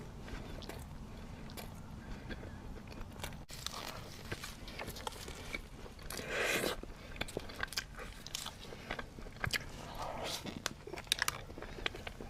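Close-miked chewing and biting of bread, with many small crisp clicks and crackles and a louder bite about six and a half seconds in and another around ten seconds.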